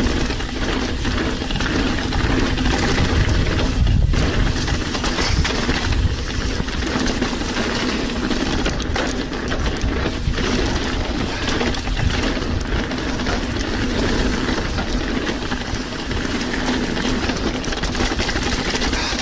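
Mountain bike ridden over a trail, heard from a chest-mounted action camera: constant wind buffeting on the microphone, with tyre rumble and the bike's frame and chain rattling over bumps.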